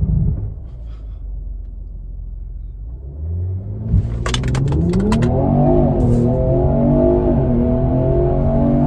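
Mercedes-AMG E43's twin-turbo V6 engine pulling a standing-start launch. It runs low for the first few seconds, then a thump about four seconds in marks the launch, and the engine note climbs steeply under full acceleration and stays high.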